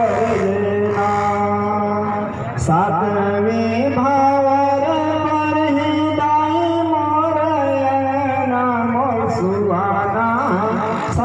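A voice chanting Hindu wedding mantras in long, held notes that slide up and down, over a steady low hum.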